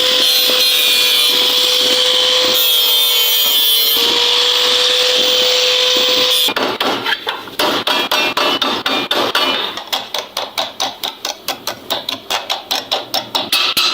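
An electric power tool runs steadily with a whine for about six seconds, then cuts off. Rapid hammering on sheet metal follows, about four to five even blows a second, as a fridge's body panel is fitted with new metal strips.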